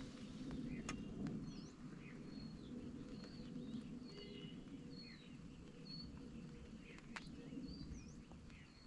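Small birds chirping, many short high calls and quick rising and falling notes, over a low steady rumble of outdoor background noise; two sharp clicks, about a second in and near the end.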